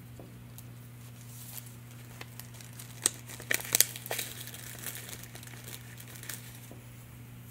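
Crinkling and crackling of a plastic bag of gold leaf flakes and its loose flakes being handled by fingers, in scattered irregular crackles, loudest about halfway through.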